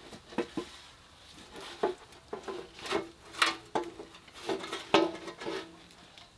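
Metal clinking and rattling: a dozen or so sharp, irregular knocks, some with a short ring, as loose metal parts and debris are handled in the engine's oil pan.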